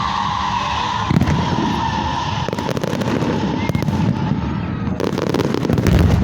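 Fireworks display: bangs and crackling bursts about a second in, again around three seconds, and a dense crackling run near the end, over a steady high tone that fades out in the first half.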